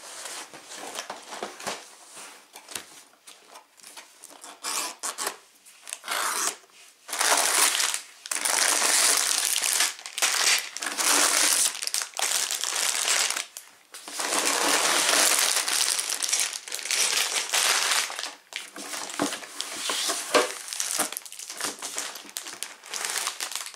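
A cardboard Lego box being opened, with short rustles and clicks, then sealed plastic bags of Lego pieces pulled out and piled on a table. The plastic crinkles in long stretches from about seven seconds in.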